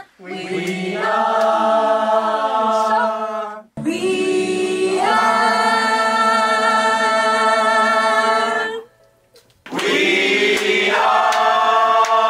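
A mixed group of men's and women's voices singing a cappella as a choir, holding long sustained chords. There are three held chords, each cut off sharply, with a brief near-quiet gap before the last one.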